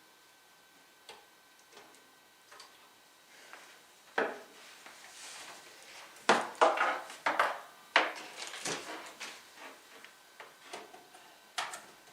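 Objects being handled at a desk: a few faint ticks, then a run of loud clicks, knocks and short rattles in the middle, and one more sharp knock near the end.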